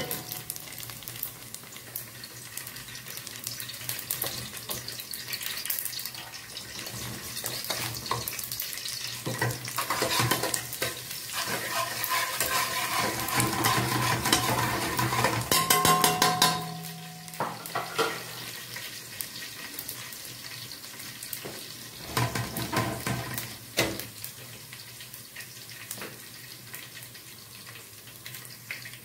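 Vermicelli, onions and rice frying and sizzling in a pot while being stirred with a spoon, with scattered knocks of utensils against the pots. The loudest clatter, with a brief metallic ring, comes a little past the middle.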